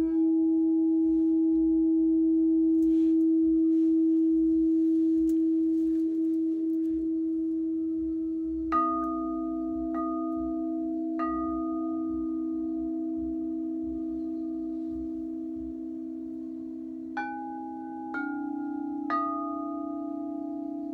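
Frosted crystal chakra singing bowls ringing with long, sustained tones. A held tone rings throughout; about nine seconds in, the bowls are tapped three times about a second apart with wand mallets, bringing in a lower tone, and near the end three more taps add higher tones that ring on together.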